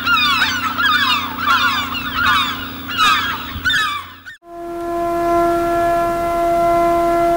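A flock of birds calling busily, with many quick overlapping cries, cut off abruptly about four seconds in. A long, steady horn blast then fades in and holds on one note.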